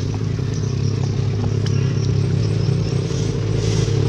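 An engine running steadily, a low even hum, with a few light clicks and rustles over it.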